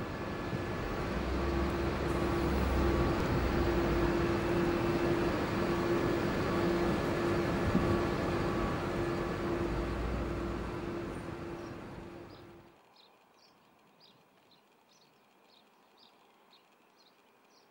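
Airbus A350-900 airliner with Rolls-Royce Trent XWB engines passing close on landing: loud jet engine and airflow noise with a steady hum, cutting off abruptly about 13 seconds in. After that, a quiet background with short high chirps repeating about twice a second.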